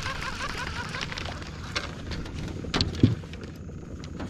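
Mach Crush baitcasting reel cranked fast as a hooked bass is reeled in, a quick repeating whir that fades out about a second in. A couple of sudden knocks follow near three seconds in.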